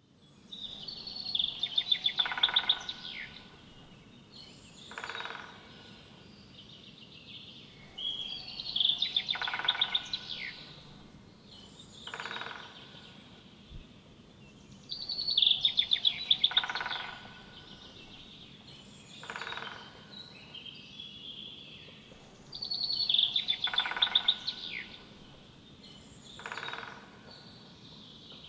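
Woodpecker calling in four repeated bouts about seven seconds apart. Each bout is a rapid run of high notes lasting about two seconds, followed a couple of seconds later by a shorter call.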